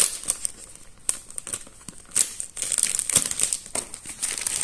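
Crinkly plastic packaging rustling and crackling in irregular bursts as it is handled and opened.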